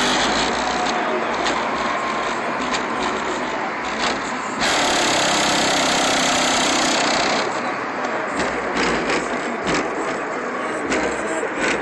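Loud subwoofer bass from the Dodge Magnum's aftermarket Kicker car-audio system, heard from outside at the closed rear hatch and breaking up into a distorted buzz. It gets louder for about three seconds in the middle.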